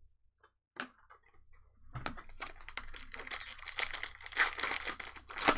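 Trading card pack wrapper being torn open and crinkled, a dense crackling starting about two seconds in after a near-quiet start with a single click.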